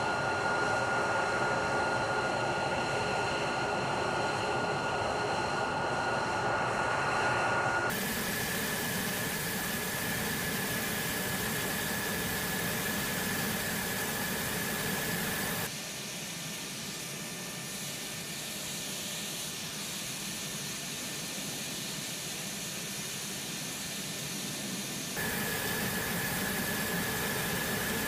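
Jet engine running on an airfield flight line: a steady high whine over a rushing noise. The sound shifts abruptly in pitch and loudness three times.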